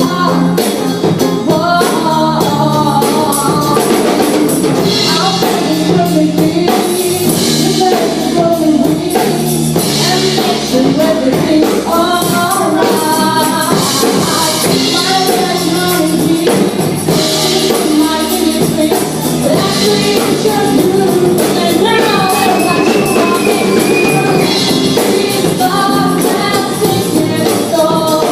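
Music with singing and a tambourine: a live band's song with a vocal line over a steady accompaniment.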